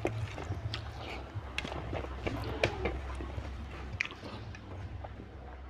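Close-miked eating by hand: fingers wiping curry from a plate, then wet chewing of a mouthful of curry and rice, with scattered sharp mouth clicks.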